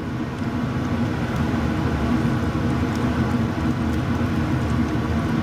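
Steady whooshing hum of a running fan or blower, with faint scrapes of a spatula stirring thick meat sauce in a stainless steel pot.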